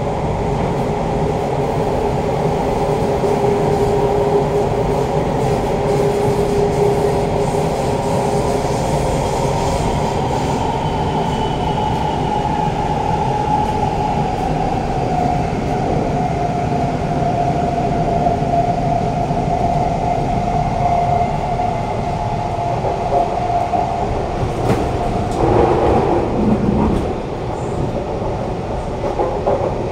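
Siemens C651 metro train heard from inside the car, running on the track with a steady rumble and its motor whine slowly falling in pitch as it slows. Near the end comes a brief louder burst of noise.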